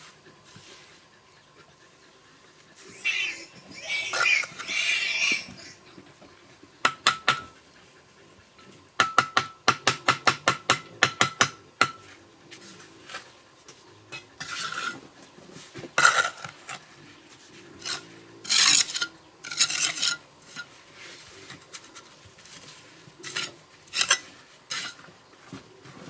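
Steel bricklaying trowel scraping and spreading cement mortar on clay bricks, with a quick run of about a dozen sharp, slightly ringing taps around the middle, followed by more scrapes and clicks.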